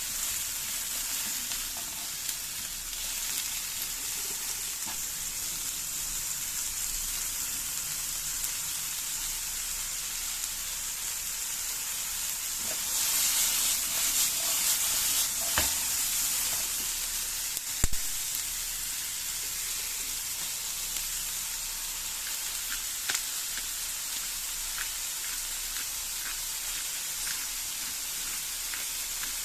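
Food frying in hot oil in a pan, a steady sizzle that swells louder for a few seconds about halfway through. There are two sharp knocks of a utensil on the pan, the second the loudest sound.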